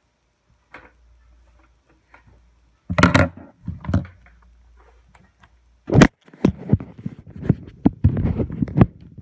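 Handling noise: two loud knocks about three seconds in, a sharp click near six seconds, then a quick run of small clicks and rattles as the camera is moved back over the table.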